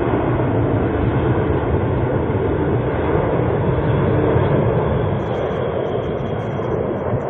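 Airbus A380's four Rolls-Royce Trent 900 jet engines giving a loud, steady roar.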